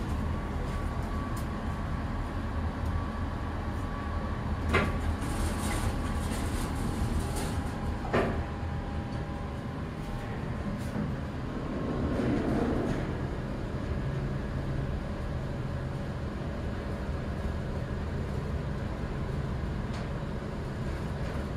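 Inside a Mid-American traction elevator car: a steady low hum with a couple of sharp clicks, and the car's sliding doors closing partway through.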